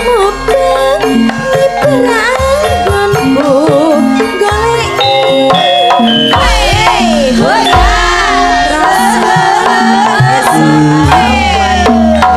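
Javanese gamelan music: a sinden sings a wavering melody through a microphone over the steady notes of metallophones and a hand drum's pulse. About halfway through, the vocal lines grow busier and climb higher.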